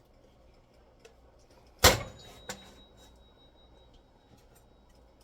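A single sharp metallic clank of cookware being set down, ringing briefly with a thin high tone, followed by a lighter click.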